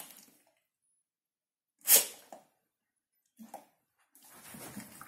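Hungarian vizsla giving a single short, sharp snort about two seconds in, during a lull in the dogs' grumbling talk, followed by a faint short grunt. A low grumble starts up again near the end.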